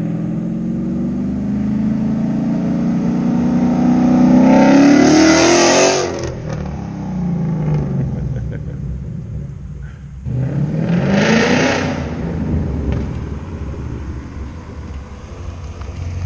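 Ford Mustang GT's 5.0 V8 revved hard through a cat-delete exhaust with Roush axle-back mufflers. A long rev climbs for about six seconds and cuts off sharply, then a second, quicker rev starts about ten seconds in and falls away.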